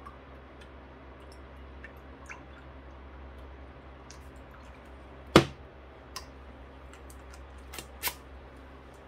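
Small wet clicks and taps from a syringe and printhead being handled while water is pushed through the ink chambers, the sharpest click about halfway through and a few more near the end, over a low steady hum.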